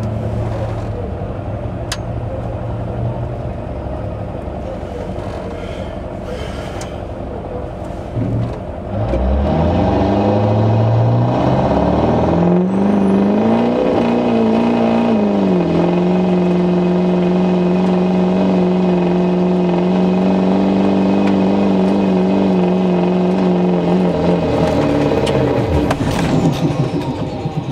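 Duramax turbo-diesel pickup engine heard from inside the cab during a truck pull. It runs at a low steady speed, then revs up hard about nine seconds in and climbs in pitch under full load. It holds high and steady for about eight seconds, then drops off near the end.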